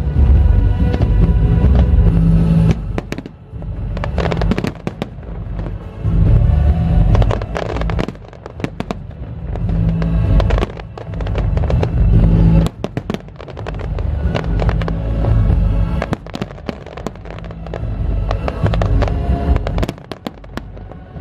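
Fireworks display going off in rapid succession: many sharp bangs and crackles over a deep rumble, with a musical soundtrack playing along.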